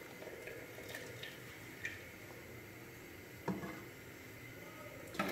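Faint soft squelching of wet, half-boiled rice being spread with a metal spoon in a steel pot, with a few light taps of the spoon and one a little louder about three and a half seconds in.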